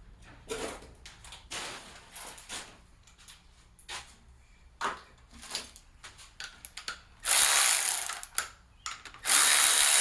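Metal tools and parts clinking and knocking, then a cordless power ratchet run for about a second, about seven seconds in, and again from about nine seconds in, backing out old bolts.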